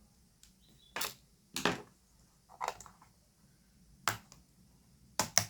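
Scattered sharp clicks and light knocks, about six in all, the last two close together near the end, as small screws and the plastic parts of a laptop being taken apart are handled.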